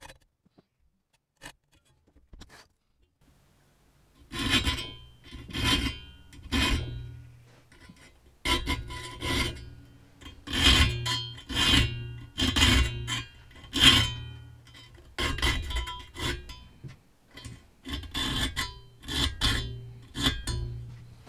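Fine flat file sharpening the teeth of a Silky pruning saw blade clamped in a vise. A few faint clicks, then from about four seconds in, rasping strokes about one a second, in short runs with brief pauses.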